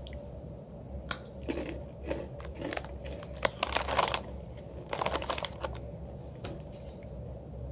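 Crunching of Takis rolled corn tortilla chips being bitten and chewed: irregular bunches of crisp crackles, several crunches at a time, with short pauses between them.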